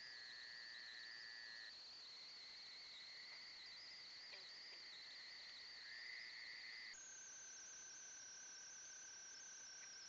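Faint, steady night chorus of trilling insects: a high continuous trill with a lower one beneath it. The chorus changes abruptly about seven seconds in, where one trail-camera recording is spliced to the next.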